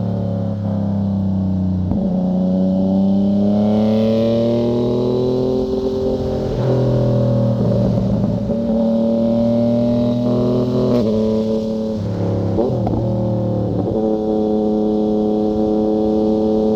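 Yamaha MT-09's three-cylinder engine through a Fuse Caracol exhaust with the dB killer removed. The engine note climbs slowly a couple of seconds in, then steps up and down several times.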